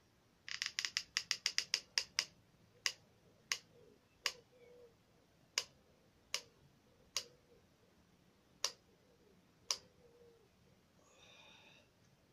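Hot glue gun's trigger and feed mechanism clicking: a quick run of about a dozen clicks, then slower single clicks about a second apart, stopping nearly ten seconds in.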